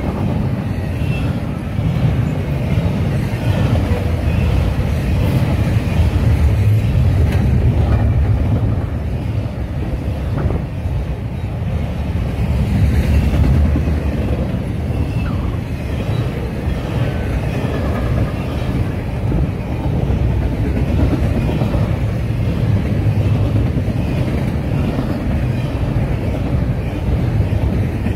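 Double-stack intermodal freight train's container well cars rolling steadily past: a continuous rumble of steel wheels on rail that swells and eases gently.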